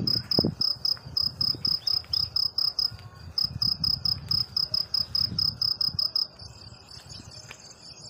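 Insect chirping loudly with a high, even pulse about six times a second. Near the end it changes to a continuous buzz.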